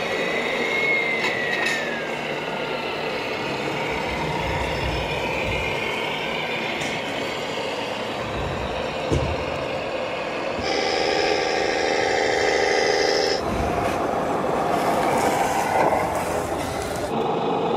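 1:14 scale radio-controlled model trucks driving in a run of short takes, with steady mechanical truck-like running sounds. A pitch slides down during the first few seconds. From about eleven seconds in, a steady chord-like tone holds for a few seconds.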